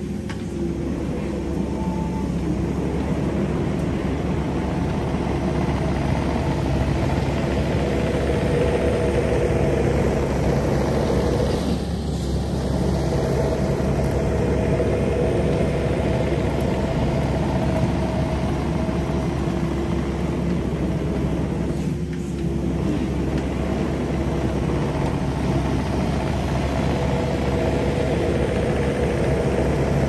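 Kubota 080 excavator's diesel engine running steadily under work, with its pitch held and a couple of brief dips in level.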